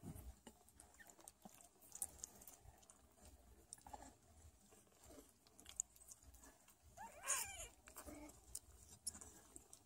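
Sphynx kittens suckling at their mother, with faint scattered clicks, and one short high kitten mew about seven seconds in.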